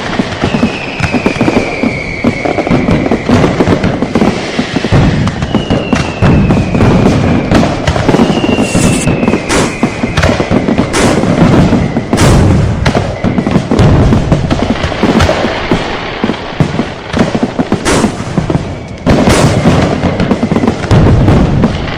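Fireworks and firecrackers going off thickly, a continuous crackle and booming with sharp cracks scattered through it, loudest around the middle and near the end. Several whistling rockets sound one after another, each whistle falling in pitch over about two seconds.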